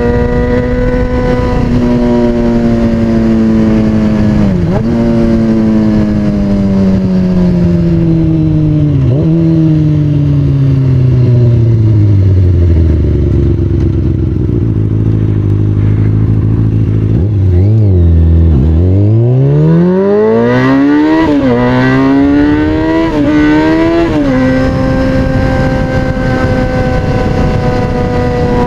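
2003 Kawasaki ZX-6R 636's inline-four through an aftermarket MotoGP-style exhaust, loud while riding. The revs fall steadily as the bike slows almost to idle, then climb again as it pulls away, with three quick upshifts, and settle into a steady cruise near the end.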